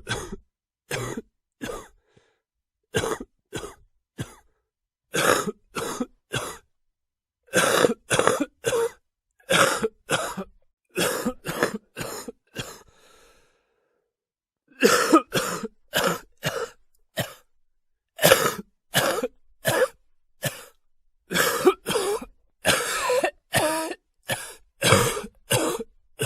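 A person coughing over and over in short bouts of two to four quick coughs, with brief pauses between bouts, mixed with throat clearing.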